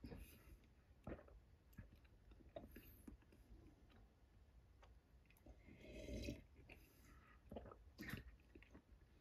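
Faint chewing and mouth sounds of someone eating firmly pressed vinegared sushi rice, with a few soft clicks.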